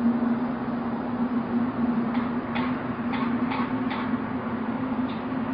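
A steady low droning hum with a slightly wavering pitch over a hiss: the so-called mysterious 'trumpet' sound from the sky. A handful of short clicks come about two to four seconds in.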